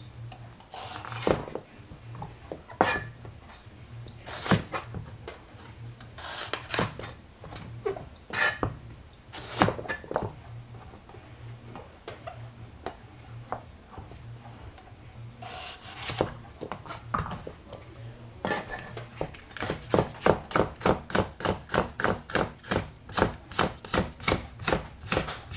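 Kitchen knife working vegetables on a cutting board: scattered knocks and scraping strokes at first, then, after about 18 seconds, a fast, even run of chopping, several strokes a second.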